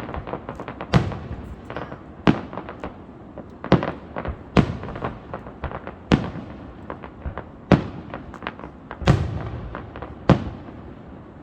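Fireworks display: aerial shells bursting in a non-stop run of sharp booms, about one every second or so, with smaller pops and crackles between them.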